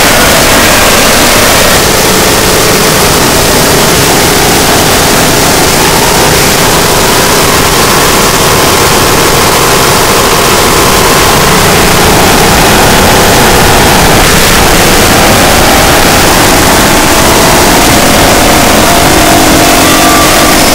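Harsh noise music: a loud, unbroken wall of distorted electronic noise filling every pitch, with faint wavering tones weaving through the middle.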